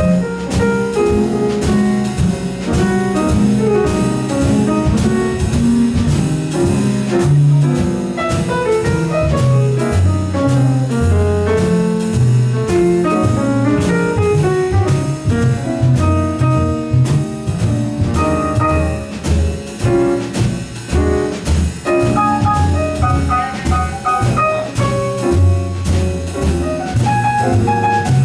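Live jazz band playing an instrumental stretch of a slow blues: a saxophone lead over walking double bass, piano and a drum kit keeping steady time on the cymbals.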